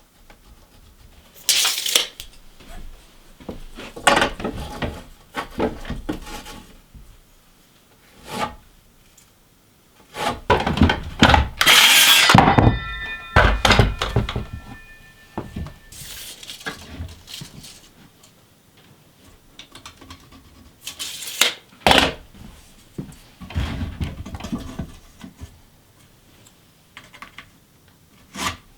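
Lumber and tools being handled while building wooden stairs: irregular knocks and thuds of boards being moved and set down. About twelve seconds in comes the loudest clatter, followed by a brief metallic ring.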